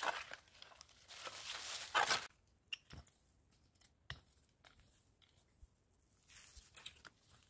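A short-handled hoe scraping and chopping into dry, dusty soil: a loud, scratchy rasp that stops abruptly about two seconds in. After that it is much quieter, with a few sharp clicks and faint rustles of dry leaves and twigs being handled.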